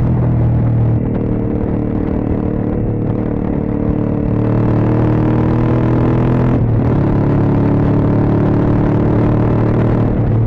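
Motorcycle engine under way, heard from the rider's seat. The revs climb steadily for several seconds, break off abruptly at a gear change about six and a half seconds in, then pull on again.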